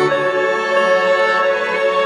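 Background music: slow string music with long held notes that change every second or so.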